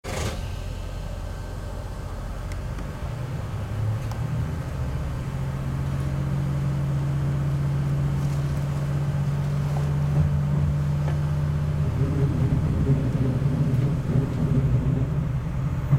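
Tosa Kuroshio Railway 9640 series diesel railcar running under power and picking up speed, heard from the cab. The engine note steps up about three seconds in and grows gradually louder.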